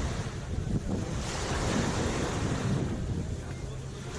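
Small sea waves washing onto the shore, one wash of surf swelling about a second in and easing off near the end, over a steady low rumble of wind buffeting the microphone.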